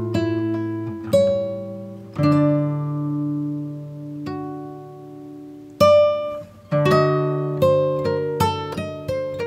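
Background music on acoustic guitar: a few slow plucked chords left to ring, then a quicker picked melody from about seven seconds in.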